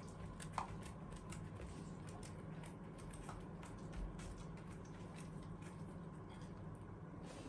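A pet eating dry food: faint, irregular crunching clicks over a low steady hum.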